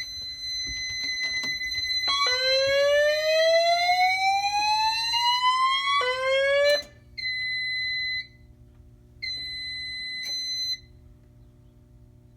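Fire alarm voice evacuation system sounding its whoop tone: a slow upward sweep in pitch lasting about four seconds, over a steady high tone. A second whoop is cut off after less than a second, followed by two shorter steady high beeps, and then the alarm stops.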